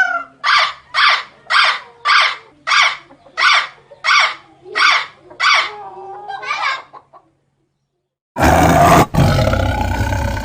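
An animal calling in a rhythmic series of about ten short pitched calls, roughly two a second. After a brief pause comes a loud, rough, roar-like call.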